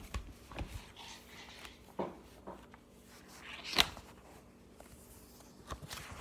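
Handling noises from a picture book being held up and moved about: a few brief rustles and knocks, the sharpest about four seconds in.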